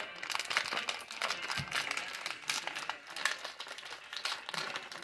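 Thin plastic snack wrapper crinkling in irregular crackles as hands grip and pull at the top of the bag to open it.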